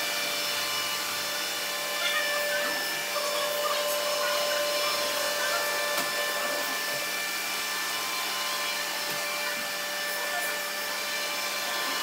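Several robot vacuums running at once on a hardwood floor: a steady motor hum with a high, even whine over it and scattered small clicks.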